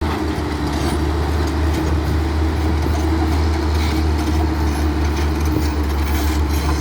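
Heavy diesel engine of construction machinery running steadily, a deep constant hum with a rough noisy layer above it.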